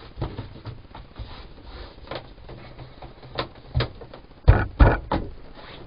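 Interlocking foam mat tiles being pressed and patted into place by hand: a run of irregular soft knocks and thumps, with two louder thumps about half a second apart near the end.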